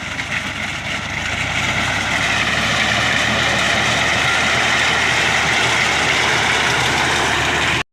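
Engine of a wheat harvester running steadily under load while it cuts a standing sorghum crop, with a loud mechanical whir over the engine note; the sound cuts off suddenly near the end.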